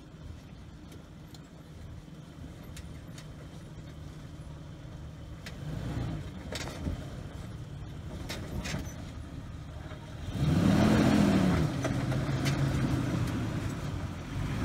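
Jeep Wrangler TJ's 4.0-litre straight-six pulling slowly at low revs while crawling over rock, with scattered clicks and knocks. About ten seconds in, the engine revs up and back down once, the loudest moment, then settles again.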